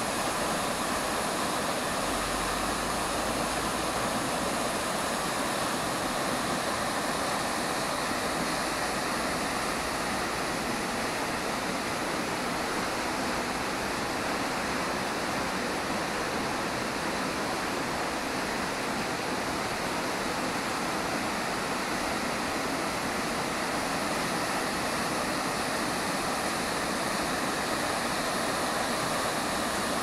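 Horsetail Falls rushing steadily: a constant, even noise of falling water plunging into its pool.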